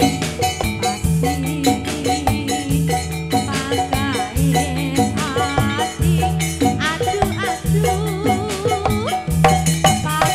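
Jathilan dance accompaniment music: fast drum strokes and rattling percussion over a wavering melody line, with a low tone pulsing about once a second.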